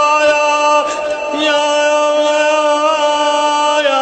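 A single voice chanting a mourning elegy in long held notes, sliding from one pitch to the next, with a brief break about a second in and a drop in pitch near the end.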